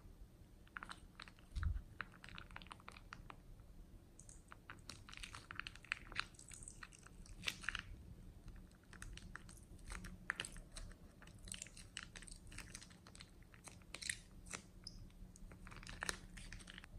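Thick slime being squeezed out of a plastic piping bag onto wet slime: soft, irregular wet crackling and small popping clicks, with a single low thump about one and a half seconds in.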